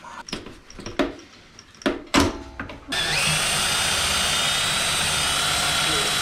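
A few knocks and clunks from the exhaust being worked loose, then from about three seconds in a cordless drill runs steadily with a high whine. It is boring into the aluminium end cap of a Honda CRF150R's stock muffler to drill out its rivets.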